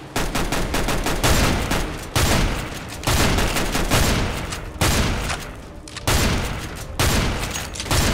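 Automatic gunfire sound effect, dubbed over toy-blaster play: about eight rapid bursts of shots, roughly one a second, each starting sharply and then fading.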